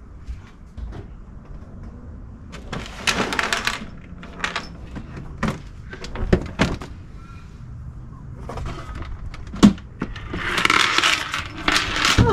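Knocks, clunks and scraping of a plastic cassette toilet being worked loose and lifted out of its mounting in a caravan bathroom. The scraping comes about three seconds in and again near the end, with one sharp knock just before that.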